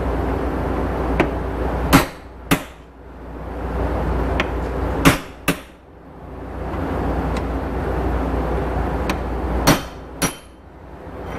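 Hammer blows on the steel of a bush hog driveshaft, struck to knock a damaged groove back into shape. There are three pairs of sharp metallic strikes, the two blows in each pair about half a second apart and a few seconds between pairs, with lighter taps in between.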